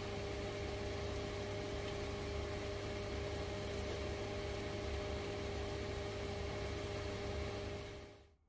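Steady motor hum with a low rumble and two steady mid-pitched tones, fading out just before the end.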